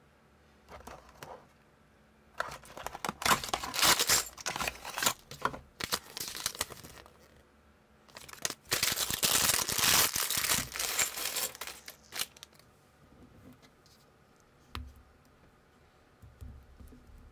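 Cardboard toy box and its packaging torn open and crinkled by hand, in two long stretches of crackling rustle. Near the end come a few soft clicks of small plastic minifigure parts being handled and fitted together.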